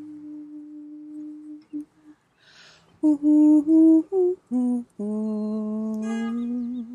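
A woman humming one steady note, then after a pause and a breath, singing a string of short wordless notes that step up and down in pitch. The phrase ends on a long, lower held note. This is light-language chanting.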